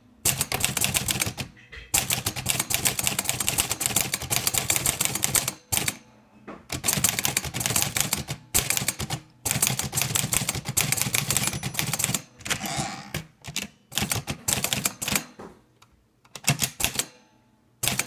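Olivetti Lettera 32 manual portable typewriter being typed on: runs of rapid key strikes, separated by short pauses, as the typebars hit the paper on the platen. Partway through, the carriage is returned to start a new line.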